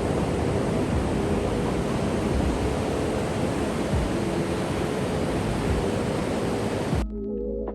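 Wind rushing over the microphone together with ocean surf, a loud steady noise. About seven seconds in it cuts off abruptly and soft background music starts.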